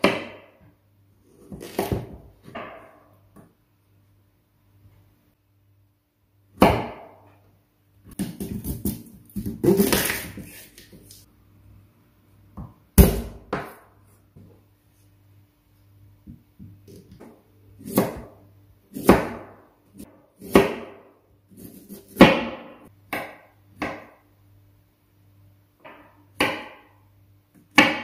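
Kitchen knife chopping potato and onion on a wooden cutting board: irregular knocks of the blade striking the board, a dozen or so spread out, with a longer stretch of close scraping knocks about a third of the way in.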